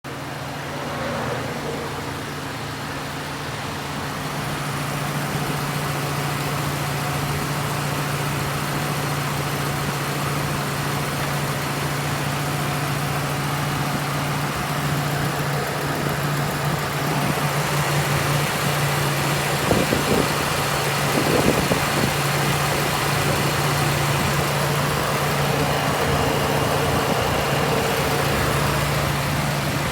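Car engine idling steadily with the air-conditioning running during an R-134a refrigerant recharge. A few knocks come around twenty seconds in.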